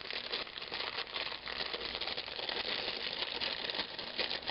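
Plastic packaging crinkling and rustling as it is handled, with many small clicks throughout.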